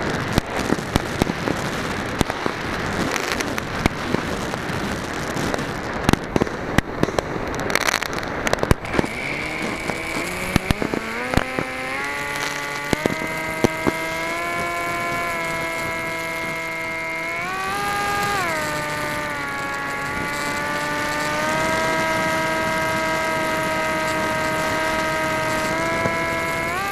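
Fireworks bangs and crackling fill the first ten seconds or so, heard from on board the RC flying wing. Then the wing's motor and propeller rise in pitch to a steady whine, swelling up and back down once about two-thirds through.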